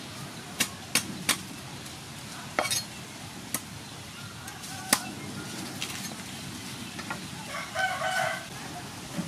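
Meat cleaver chopping into the husk of a young green coconut on a wooden chopping board: about six sharp chops over the first five seconds, then fainter knocks. A short bird call sounds near the end.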